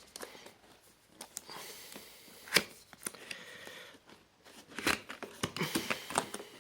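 Cardboard keyboard box and its packaging being opened by hand: rustling and sliding with scattered clicks and taps, one sharper click about two and a half seconds in.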